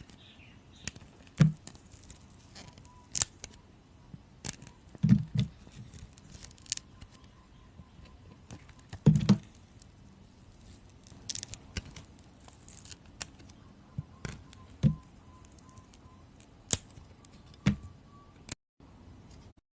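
Blade cutting through a bar of soap: irregular crisp slicing clicks and crackles, with a few louder dull knocks between them. The sound stops about eighteen seconds in.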